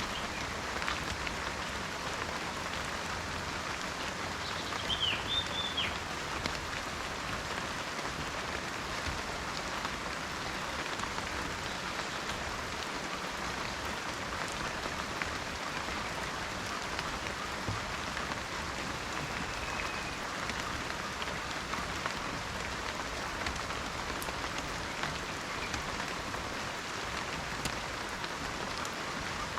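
Steady rain falling in a forest, an even patter throughout, with a short bird chirp about five seconds in.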